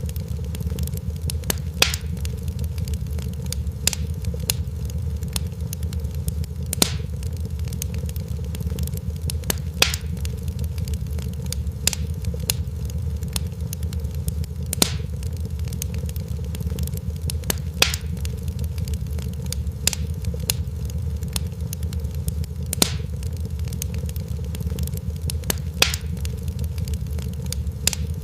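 Wood fire crackling, with sharp pops every second or so, a few much louder than the rest, over a steady low rumble of the burning.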